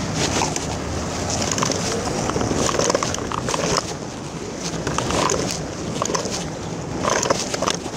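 Hard plastic wheels of a child's Disney princess trike rolling over rough asphalt: a steady scraping, grinding rumble with frequent small clicks and knocks.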